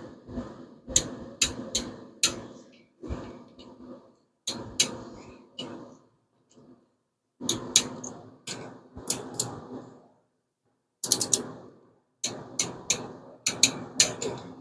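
Click-type torque wrench ratcheting down 5.7 Hemi rocker-shaft bolts: bursts of sharp metallic clicks, each with a short rattle, repeated in about six groups as bolt after bolt is tightened toward 16 foot-pounds.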